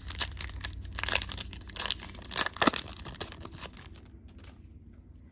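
Foil wrapper of a Panini Select football trading-card pack being torn open and crinkled: a run of sharp crackling tears, loudest about two and a half seconds in, dying away after about four seconds.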